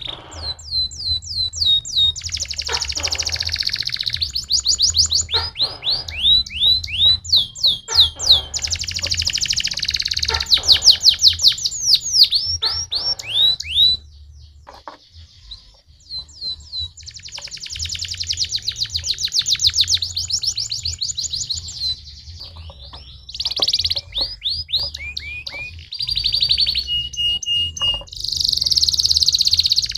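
Domestic canary singing: fast rolling trills and repeated rapid chirps in long phrases, with a short pause about halfway, over a low steady hum.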